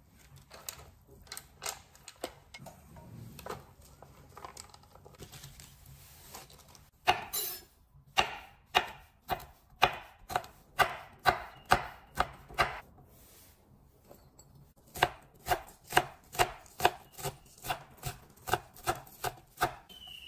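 Kitchen knife chopping a red chili and green onions on an end-grain wooden cutting board: steady blade strikes on the wood, about two to three a second, in two runs with a short pause between. Before the chopping, a few seconds of quieter, scattered handling clicks.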